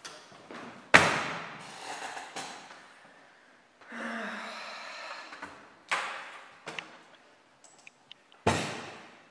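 Sharp thuds about a second in, near six seconds and near the end, each dying away over about a second, and between them a long, audible sigh.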